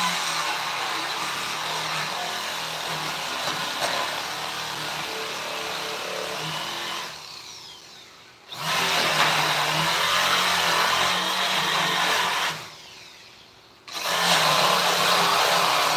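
Electric power tool working wood, run in three stretches: it runs steadily for about seven seconds, is switched off and winds down, starts again about a second and a half later, winds down once more near the end, and starts a third time.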